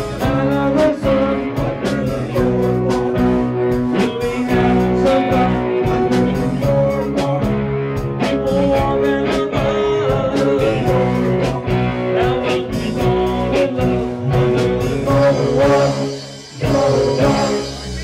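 Live bar band of electric guitar, electric bass, keyboard and drum kit playing a song, with a man singing lead. Near the end the band stops, hits one last chord and lets it ring out.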